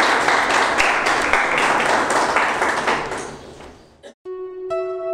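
Applause from a crowd of many hands, steady, then fading out over about a second; just after it dies away, music of plucked string notes begins.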